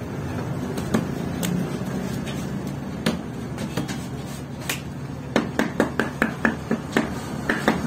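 Hands patting a ball of flatbread dough flat on a metal tray: a few separate slaps, then a quick even run of slaps, about five a second, starting a little past halfway.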